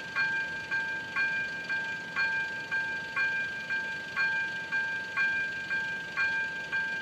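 Railway level-crossing warning bell ringing in an even rhythm, about two strikes a second. The crossing is closed with its barriers down, warning that a train is approaching.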